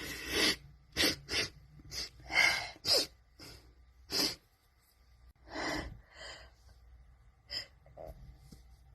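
A woman's sharp gasping breaths and sneeze-like bursts while trying to make herself sneeze: about a dozen short, breathy blasts through the nose and mouth, loudest at the start and about two and a half seconds in, thinning out toward the end.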